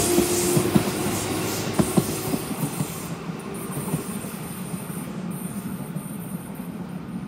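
Electric commuter train passing and moving away, its wheels clicking over the rail joints during the first couple of seconds, the sound fading steadily as it recedes.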